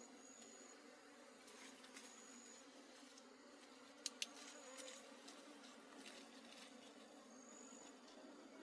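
Swarm of honey bees buzzing in a faint, steady hum, with two sharp clicks about four seconds in.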